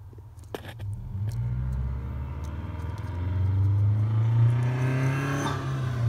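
A motor vehicle engine going by, growing louder with a rising pitch and easing off near the end. A few light clicks come about half a second in.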